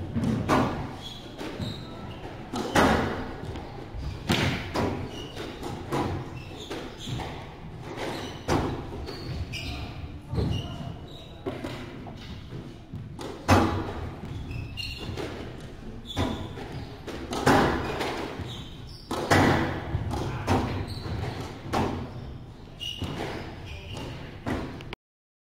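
A squash ball struck by a racket and hitting the court walls: sharp, echoing thuds every second or two, with short high squeaks of court shoes on the hardwood floor. The sound cuts off suddenly near the end.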